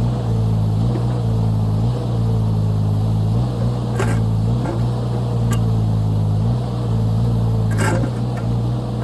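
Mini excavator's diesel engine running steadily under hydraulic load, its note dipping and recovering slightly as the boom and bucket work. A few sharp metallic clanks, likely the bucket striking rock, come about four seconds in and again near the end.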